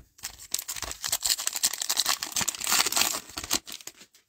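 Trading-card pack wrapper of a 2020 Panini Prizm pack being torn open and crinkled: a dense run of crackling for about three seconds that stops shortly before the end.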